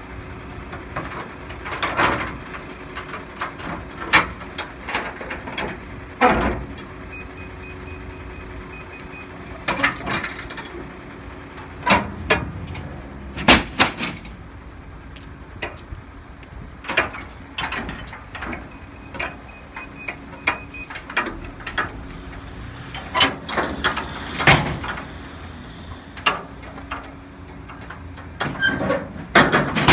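Repeated metal clanks and knocks as steel shipping-container doors are unlatched and swung open and an aluminium checker-plate ramp is set down. A steady low hum from an idling truck runs underneath.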